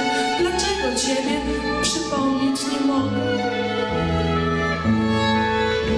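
Live string ensemble music: violins playing over sustained low bowed notes, the low note changing about once a second.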